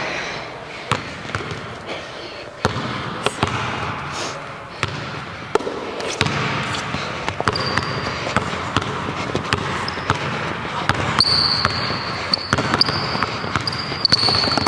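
A basketball bouncing repeatedly on a hardwood gym floor, the bounces coming faster later on as the ball is dribbled into a move. From about eleven seconds in, high sneaker squeaks come over the bouncing.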